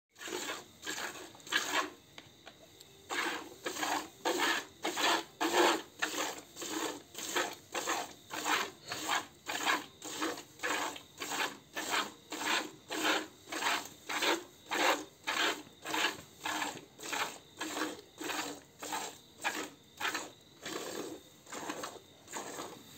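Milk squirting from a cow's teats into a plastic bucket as the cow is milked by hand: a rhythmic hissing swish about twice a second, one stroke after another, with a short pause about two seconds in.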